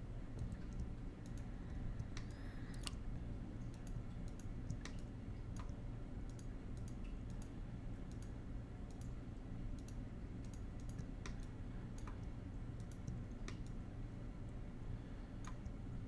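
Computer mouse and keyboard clicks, scattered and irregular, over a steady low hum.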